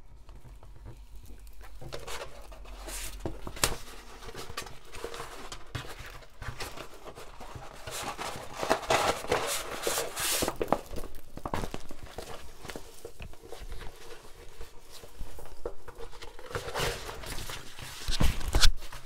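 Crinkling and rustling of a diamond-painting canvas sheet being rolled up and handled on a table, with a dull thump near the end.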